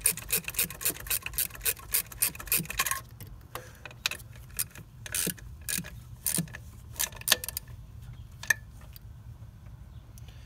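Ratchet wrench clicking in quick, even strokes, about four clicks a second, as the compressor mounting bolts are run down snug. The clicking stops about three seconds in, leaving a few scattered clicks and taps.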